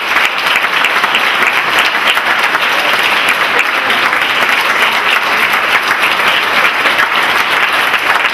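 Audience applauding steadily in a large hall: dense, sustained clapping at the close of a talk.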